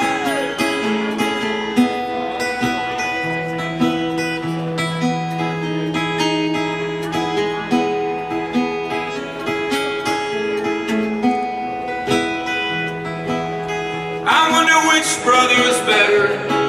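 Acoustic guitar played solo in an instrumental break, picked chords ringing over a held low note. About two seconds before the end a louder passage of bending high-pitched tones joins it.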